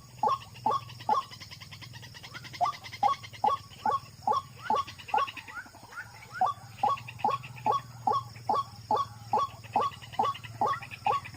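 White-breasted waterhen calling: a long run of the same harsh, pitch-swept note repeated about two to three times a second, with a short break near the start. This is the wak-wak call used to lure waterhens to a snare.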